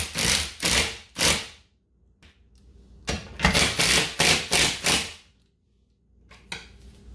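Milwaukee M18 cordless impact tool hammering lag bolts tight into the wall studs, in short rapid bursts a few times a second. One run ends about a second and a half in, and a second run follows from about three to five seconds, with a pause between.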